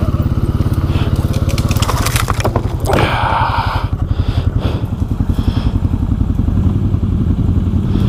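Can-Am Outlander 700 ATV engine running at low trail speed with a steady chug. Branches and brush crackle and scrape against the machine as it pushes through, most strongly between about one and four seconds in.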